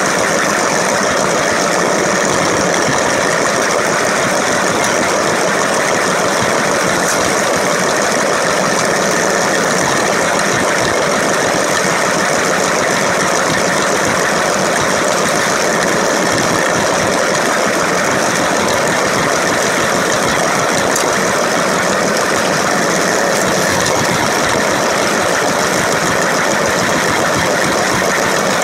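Lego 9V train motor running with its wheels rolling on plastic track, heard close up from on board the train: a steady, even whirring rattle.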